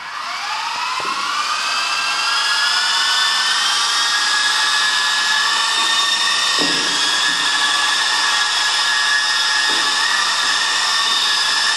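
Walkera 5G4 micro RC helicopter's electric motor and main rotor spinning up: a high whine that rises in pitch and loudness over the first two seconds or so, then holds steady.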